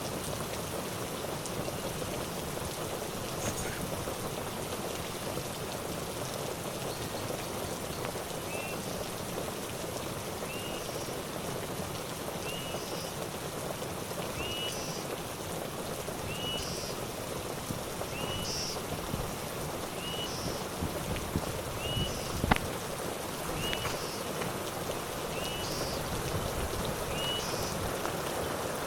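Steady rain falling. From about a third of the way in, a short chirp repeats roughly every second and a half, and a single sharp tap sounds about three quarters of the way through.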